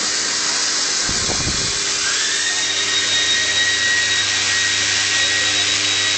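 Thread rolling machine and its vibratory bowl feeder running: a loud, steady hiss of machinery. There is a low thump about a second in. About two seconds in, a whine rises and then holds steady over a low hum.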